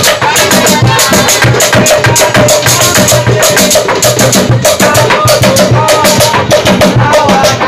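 Loud, lively music driven by fast, dense drum and rattle percussion, with a wavering melody line over the beat.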